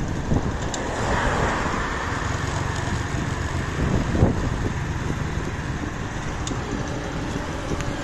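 Steady engine and road noise of a vehicle travelling along a paved highway, with a brief swell about four seconds in.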